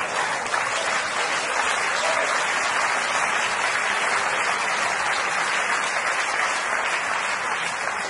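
Theatre audience applauding steadily: a dense, even round of clapping.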